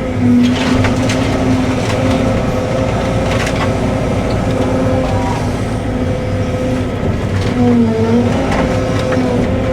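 Cat 313 excavator's diesel engine running steadily under hydraulic load, its tone dipping briefly about eight seconds in. Over it come several sharp cracks and crunches of shed wood breaking.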